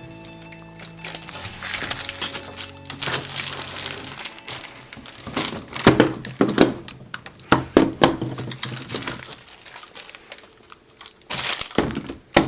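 Plastic packaging crinkling and rustling in irregular bursts as magnet tiles are unwrapped, with light background music that stops about four seconds in.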